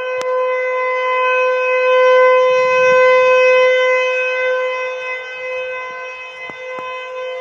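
Outdoor tornado warning siren sounding one steady tone. It swells to its loudest a few seconds in, then eases off again, as a rotating siren does.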